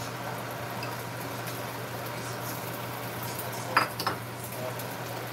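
Egg frying in hot oil in a square frying pan, a steady sizzle, with two sharp clinks a moment apart just under four seconds in.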